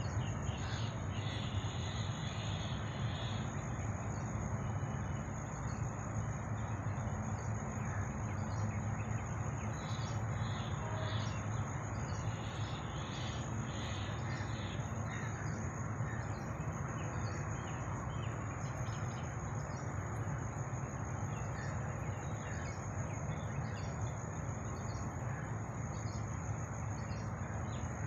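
Birds calling repeatedly in short harsh calls over a steady noisy background, with a constant high thin whine throughout.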